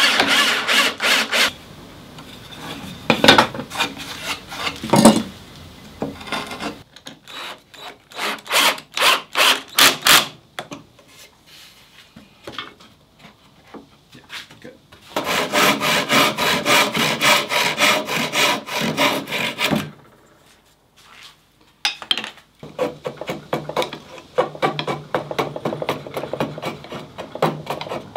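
Hand tools working wood: bouts of rapid scraping, rasping strokes with short pauses between them.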